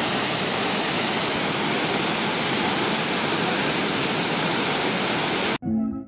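Tinuy-an Falls, a wide waterfall, rushing steadily: an even wash of falling water that cuts off abruptly about half a second before the end.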